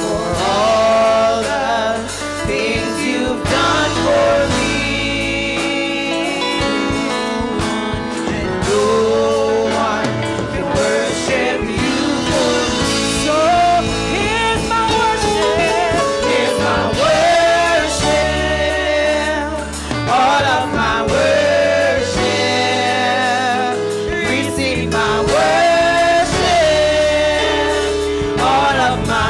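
A small group of women singing a gospel praise-and-worship song together into microphones, with live band accompaniment.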